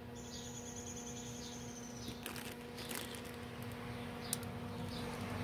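Quiet room tone: a steady low electrical hum, with a few faint clicks and rustles in the second half.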